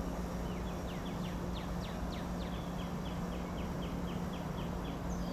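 A songbird singing one long series of short, rapidly repeated notes: first downward-sliding notes, then an even string at about four or five a second, ending about five seconds in. A steady low hum and a background rumble run underneath.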